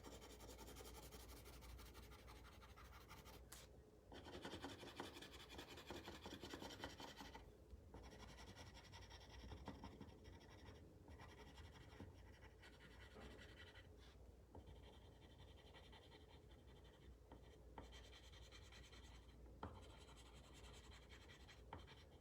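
Faint scratching of a colored pencil shading on paper, in bouts of quick back-and-forth strokes, busiest a few seconds in.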